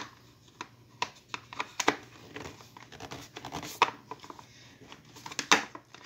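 Plastic blender jug of a Walita Master Pro food processor being twisted and pressed onto its drive outlet: irregular plastic clicks, knocks and scrapes, the loudest right at the start and about five and a half seconds in, as the jug fails to lock into place.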